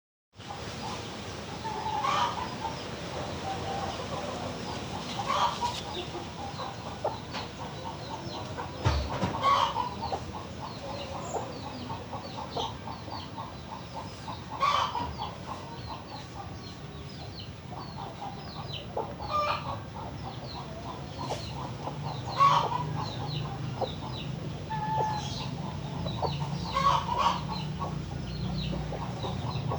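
Chicken suffering from ngorok, a snoring respiratory illness with mucus, making short clucks and calls every few seconds, with a low hum rising in the background in the last third.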